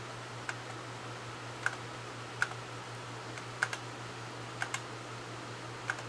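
Buttons on an RV entertainment-center radio being pressed to switch it to radio: about eight short, sharp clicks at irregular gaps, over a steady low hum.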